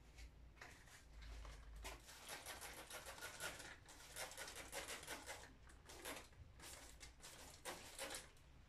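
Hand-held plastic spray bottle squeezed over and over, a quick run of short faint hisses starting about two seconds in.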